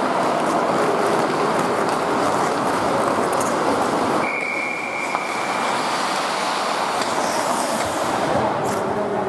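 Ice skate blades scraping and carving on rink ice as hockey players skate. About four seconds in, a referee's whistle sounds one steady blast of about a second and a half, stopping play.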